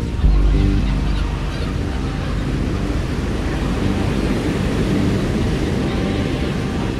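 Steady rushing of sea waves and wind over a deep rumble, setting in abruptly just after the start.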